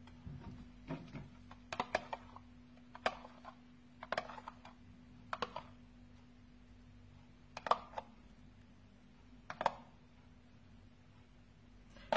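Scattered light clicks and taps from handling things in a kitchen, one every second or two, over a faint steady hum.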